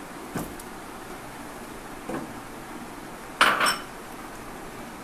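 Glass bowls and a steel platter knocking and clinking as they are moved and set down: a light knock about half a second in, another around two seconds, and a louder double clink about three and a half seconds in.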